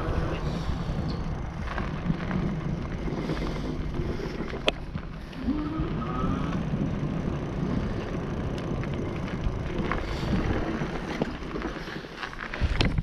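NCM Aspen e-bike being ridden: wind buffets the microphone over steady rolling noise, and about five and a half seconds in the electric motor gives a rising whine as it speeds up. A sharp click comes near the middle and a few knocks near the end.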